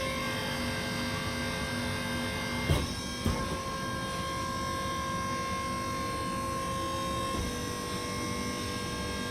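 Press brake's motor running with a steady hum, and two sharp metallic clanks about three seconds in, half a second apart.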